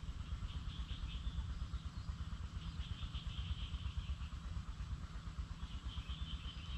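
Wind buffeting the microphone with an uneven low rumble, with a faint high chirring of insects or birds coming and going in the background.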